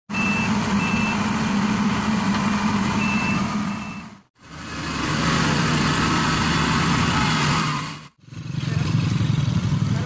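Crown Sumo crawler combine harvester's diesel engine running steadily at work, with four short high beeps from its alarm in the first few seconds. The sound drops out briefly twice, about four and eight seconds in, and the engine is heard again each time.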